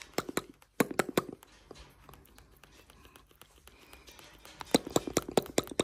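Cockatoo clicking and grinding its large beak close to the microphone, as if sharpening it: a run of sharp clicks near the start and a faster, denser run near the end.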